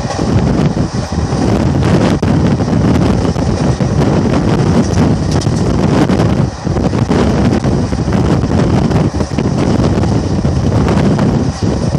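Wind rushing over the microphone held out of a moving Indian Railways passenger coach, over the steady rumble of the coach's wheels running on the track.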